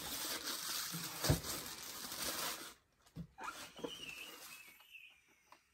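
Packaging rustling as a hand digs through a cardboard box, with a thump about a second in. The rustling stops before three seconds in, followed by a knock, a brief laugh and a few soft handling sounds.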